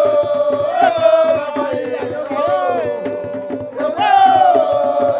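A song: a lead voice holds long, gliding notes over steady rhythmic hand percussion.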